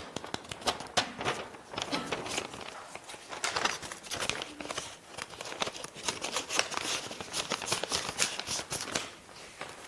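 Sheets of paper rustling and crinkling as a letter is folded and handled, an irregular run of small crackles.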